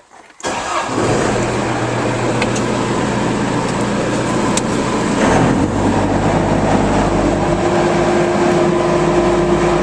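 A Bobcat 873G skid steer's 73 hp Deutz turbo diesel engine running steadily, with a shift in its note about five seconds in.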